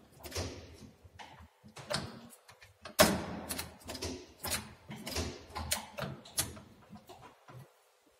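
Universal lathe's operating lever being worked up and down, its linkage in the open gearbox clicking and clunking. There is a run of about a dozen short knocks, the loudest about three seconds in.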